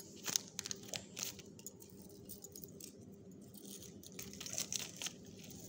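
Faint light clinking of an imitation-gold necklace with black beads being handled, with rustling of its tissue wrapping and plastic courier pouch. The clicks come in clusters near the start and again about four seconds in.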